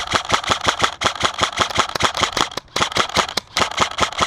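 Airsoft gun firing on full auto, a rapid even string of sharp cracks at about seven shots a second. The string breaks off briefly about a second in and again near two and a half and three and a half seconds in.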